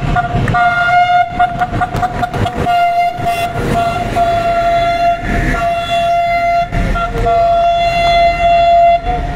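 Passing train with a diesel locomotive's horn held as one long, steady note, broken only briefly a few times, over the rumble and clatter of the coaches' wheels.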